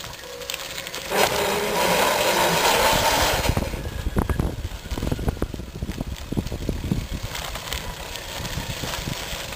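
Bicycle driven by a brushed DC motor on a PWM MOSFET controller, rolling along: about a second in a louder whirring with a faint whine swells for some two seconds, then the frame and tyres rattle and crunch over a rough surface.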